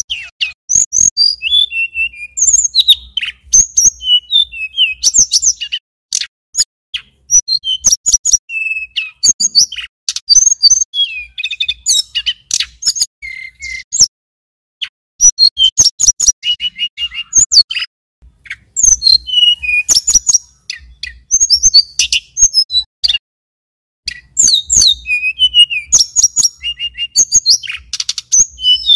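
Male tledekan gunung (sulingan gunung) singing: rapid, high-pitched chirps, trills and whistled notes in phrases a few seconds long, broken by short pauses.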